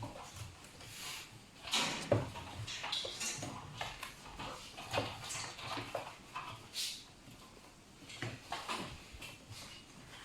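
Young raccoons scrabbling and knocking about, giving an irregular run of short clicks, scrapes and knocks.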